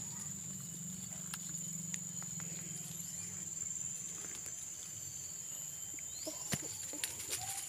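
Quiet outdoor background: a steady high-pitched drone and a low hum, with a few faint clicks and rustles.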